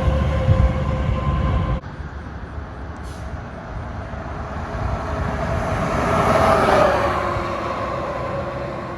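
A passing train: a steady rumble that cuts off sharply about two seconds in, then a second pass-by that swells to its loudest about seven seconds in and fades away.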